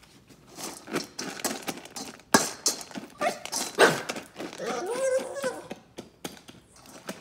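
Pug's nails clicking and tapping on a tile floor as it shifts about, with a short wavering whine about five seconds in.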